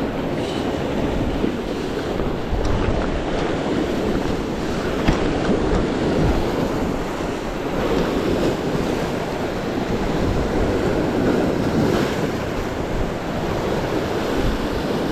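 Sea surf washing on the shore in a steady rush, with wind buffeting the microphone.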